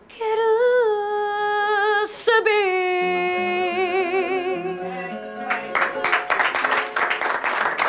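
A woman singing the last long-held notes of a fado with wide vibrato, over low plucked notes on a Portuguese guitar. About five and a half seconds in, the song ends and applause breaks out.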